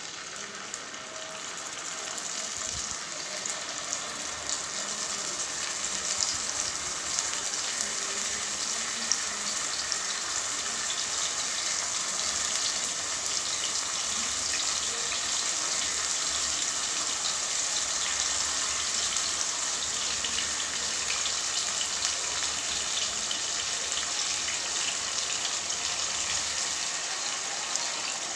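Marinated mutton pieces sizzling and crackling as they shallow-fry in a little hot oil in a pan. The sizzle grows louder over the first few seconds as more pieces go in, then holds steady.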